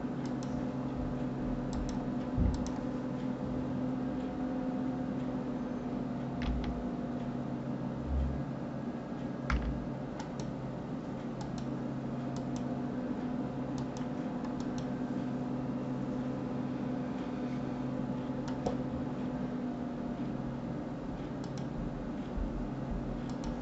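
Scattered clicks of a computer mouse and keys, every second or few, over a steady low hum, with a few soft low thumps, the strongest about two and a half seconds in.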